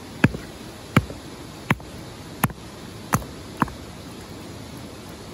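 A hand tool striking repeatedly: six sharp knocks, about one every 0.7 seconds, the last two coming closer together.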